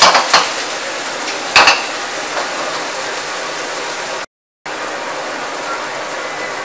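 Beef, cauliflower and carrots sizzling and hissing in a steel wok on a gas wok burner just after water and cooking wine are added. A metal ladle clanks against the wok right at the start and once more about a second and a half in. The sound cuts out for a moment about four seconds in.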